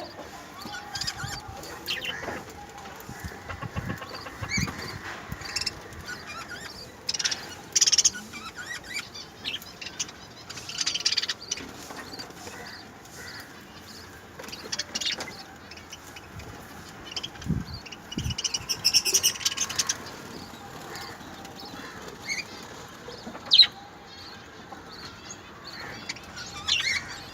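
Small pet parrots (love birds) chirping and fluttering, in short irregular bursts of high calls.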